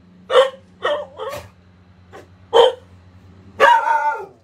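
Dog barking: four short barks in the first three seconds, then a longer, drawn-out bark near the end.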